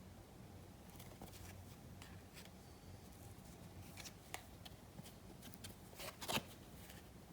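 Trading cards being handled: faint, scattered rustles and clicks of card stock, with a louder rustle about six seconds in.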